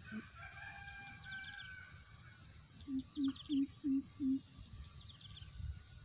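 Greater coucal calling a run of five low hoots, about three a second, in the middle. High thin bird chirps and whistles at the start, over a steady high insect drone.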